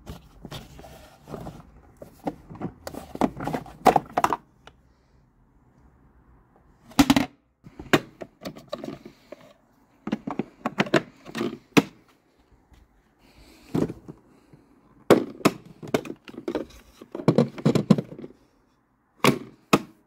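Sharp clicks, snaps and knocks of hard plastic parts being handled on a Makita DLM330SM cordless lawnmower, such as its grass collection box and the red safety key, coming in repeated clusters with short quiet gaps.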